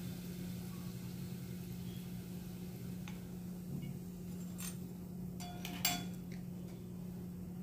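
Steel wire skimmer clinking lightly against a kadhai a few times as fried alu vadi are lifted out of the oil, the loudest clink about six seconds in, over a steady low hum.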